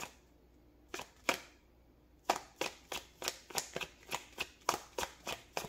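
Tarot deck being shuffled by hand: two soft card slaps about a second in, then a steady run of quick slaps, about four a second.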